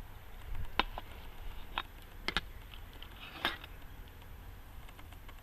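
Metal airgun pellet tins being handled: about half a dozen sharp metallic clicks and taps as a tin lid comes off and .22 pellets are picked out.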